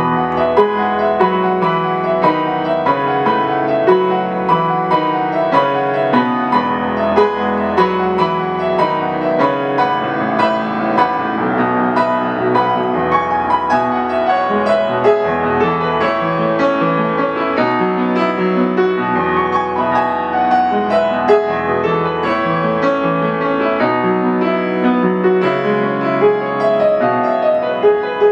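Solo piano playing a flowing new-age piece: a melody over a continuous stream of notes, with sustained bass notes beneath.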